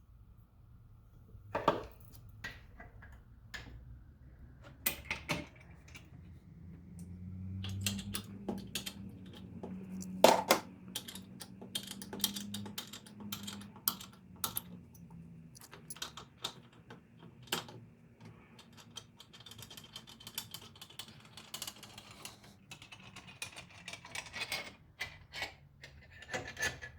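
Irregular metallic clicks and taps of a small wrench on a T45 Torx bit as a bolt is worked loose from a car's pedal bracket. The clicks come more often in the last third.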